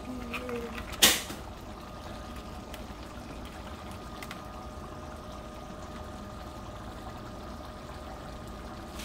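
Shrimp and potato curry simmering in an open frying pan on an electric stove, a faint steady bubbling over a low hum. A single sharp knock about a second in.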